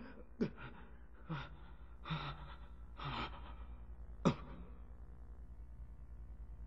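A man gasping and panting hard, about five short pained gasps roughly a second apart, the last one the sharpest; then only a faint low hum.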